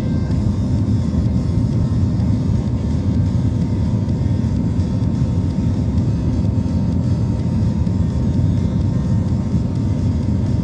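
Steady low rumble of cabin noise inside an Airbus A320 airliner, the engines and airflow heard from a passenger seat.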